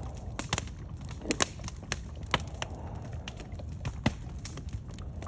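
Open fire burning under a bathtub of lead being melted, crackling with irregular sharp pops and snaps over a low, steady rumble.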